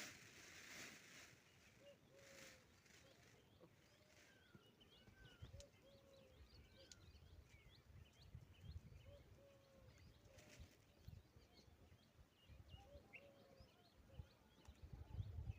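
Faint outdoor birdsong: many small high chirps from several birds, with a soft, lower call note repeated in short groups of two or three. A few low rumbles come in near the end.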